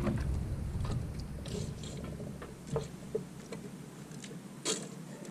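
Low rumble of wind on the microphone, fading after about two seconds, with a few light clicks and ticks from fishing rod and reel gear on the kayak.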